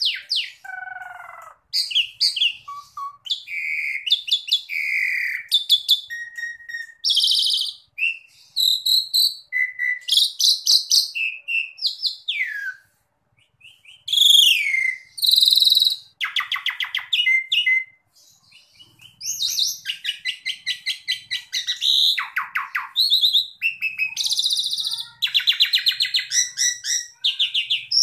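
Asian pied myna (jalak suren) singing a long, varied song of fast rattling trills, whistled notes and sliding calls, with brief pauses about 13 and 18 seconds in.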